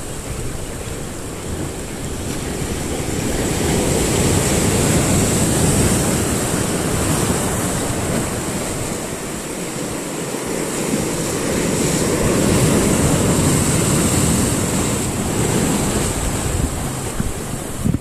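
Rough sea surf washing in and out among shoreline boulders, a steady rush that swells twice, about a quarter of the way in and again past the middle.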